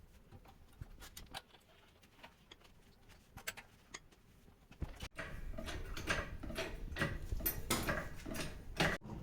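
Scattered light clicks and ticks over faint background noise, with the background growing louder and the clicks more frequent about five seconds in.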